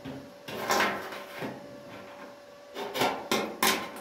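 Thin steel filler rod being handled and pressed into the cut gap of a car's steel front wing: a handful of short scrapes and clicks of metal on metal.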